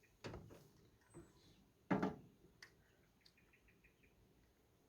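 A few handling knocks and clicks as work starts on the mower's oil drain, two louder ones about a quarter second and two seconds in, with faint bird chirps repeating in the background.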